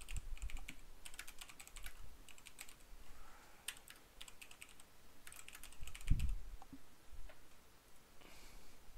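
Typing on a computer keyboard in quick runs of keystrokes with short pauses between them. About six seconds in there is a single dull thump.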